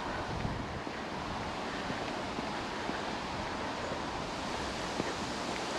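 Steady wind rushing over an open hillside and buffeting the microphone, with a few faint footstep clicks.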